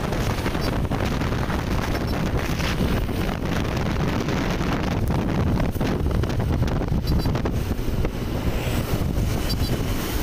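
Wind buffeting the microphone in a moving vehicle, a steady low rumbling rush.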